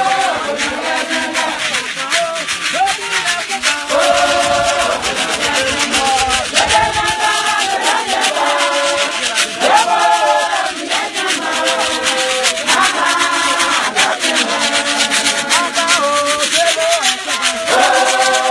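Church choir singing together in short repeated phrases over a steady shaker rattle keeping the beat.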